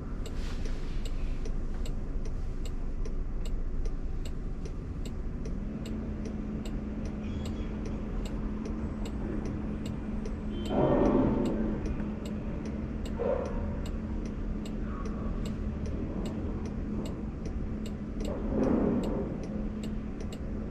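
Waymo robotaxi's turn-signal indicator ticking steadily, about two to three clicks a second, left on for a lane change it is waiting to make. Low steady cabin and traffic noise underneath, with two louder swells of vehicle noise about 11 and 19 seconds in.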